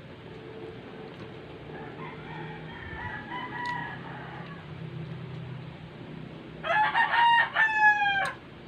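A rooster crowing: a faint crow a few seconds in, then a loud crow near the end that drops in pitch as it finishes.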